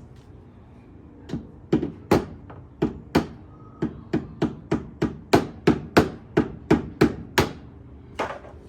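A hammer striking repeatedly, about twenty sharp blows at roughly three a second, starting about a second in, with one more blow near the end.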